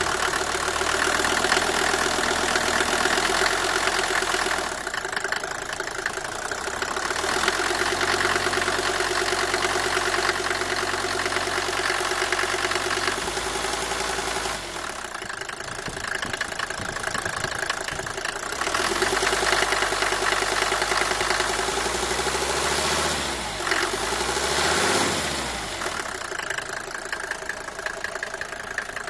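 Mercedes W124 250's five-cylinder diesel engine running cold, with an unexplained engine noise that has appeared after a new cylinder head gasket and valve stem seals. The engine speed shifts a few times, with a short rev up and back down late on.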